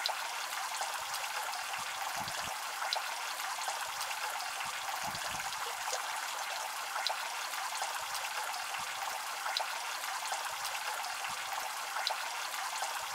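Heavy rain falling onto a water surface: a steady splashing hiss with scattered sharp drop splashes.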